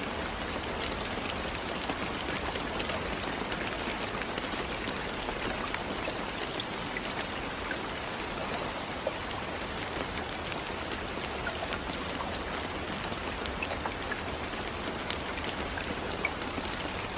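Steady rain falling, a constant hiss with many individual drops ticking through it.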